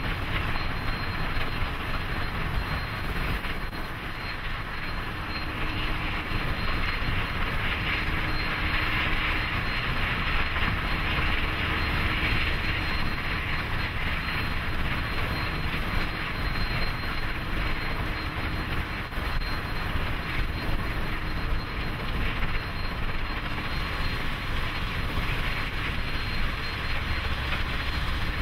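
Union Pacific 844, a 4-8-4 Northern steam locomotive, running at speed: a steady rushing sound with no separate exhaust beats.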